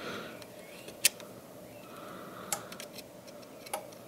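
Small sharp clicks and taps from fingers fitting a part inside an opened Samsung Galaxy Tab A8. The clicks come at irregular intervals: the loudest about a second in, then two more, near the middle and near the end.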